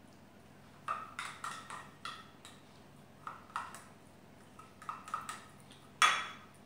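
Plastic spoon tapping and scraping against a cat-food container and dishes while pâté is portioned out: a run of light, irregular clicks and clinks, with a sharper knock near the end.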